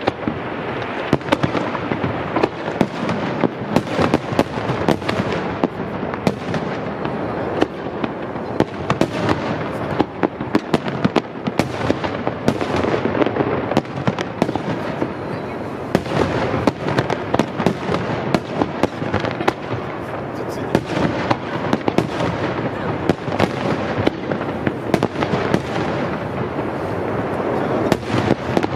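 Aerial fireworks display: a continuous rapid-fire barrage of shell bursts, many overlapping bangs a second with crackle between them, thinning slightly about halfway through before building again.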